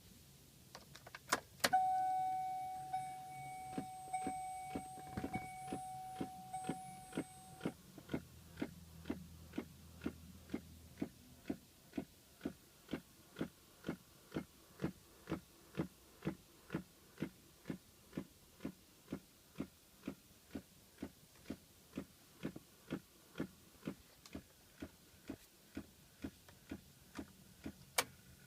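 Regular clicking, about two clicks a second, from a 2006 Pontiac Solstice, a noise that started right after the battery was replaced. A steady tone sounds along with the clicks for the first several seconds, and a sharper click comes near the end.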